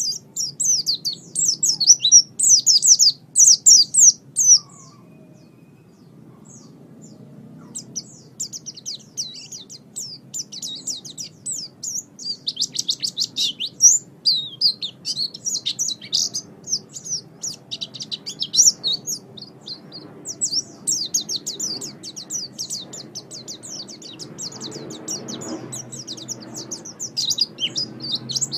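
Songbird singing a rapid, dense run of high chirps and trills, with a pause of about three seconds near the start before it goes on.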